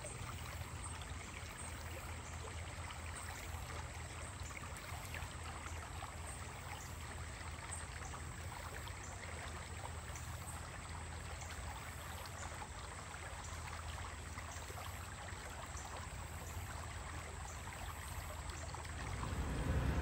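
Spring-fed stream water flowing steadily, an even hiss with a low rumble underneath.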